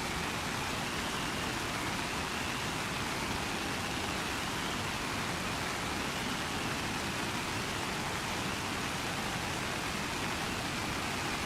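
Steady rain, an even hiss with no single drops standing out and a faint high tone that slowly wavers.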